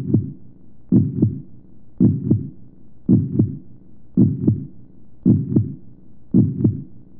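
Heartbeat sound effect: slow, steady double thumps, a lub-dub about once a second, seven beats in all.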